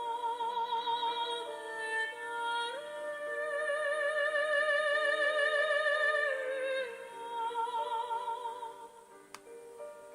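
Slow music of long, held notes that waver with vibrato, in several layers, growing quieter in the last few seconds.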